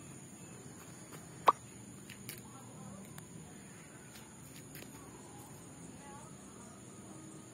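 Quiet outdoor ambience with a steady high-pitched hum, broken by one short, sharp sound about a second and a half in.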